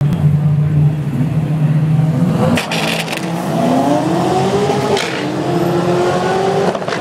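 Drag cars' engines revving hard through burnouts. A steady low engine note gives way, a couple of seconds in, to revs climbing and sweeping up and down, with a few sharp cracks along the way.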